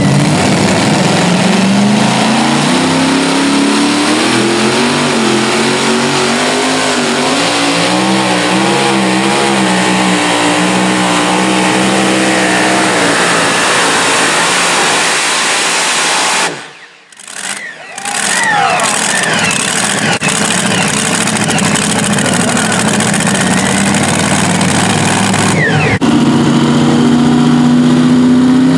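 Super modified two-wheel-drive pulling truck's engine at full throttle on a pull, its pitch climbing and then wavering up and down as the truck works the sled; the sound cuts out about seventeen seconds in. Near the end another pulling truck's engine runs steady with a slowly rising pitch at the starting line.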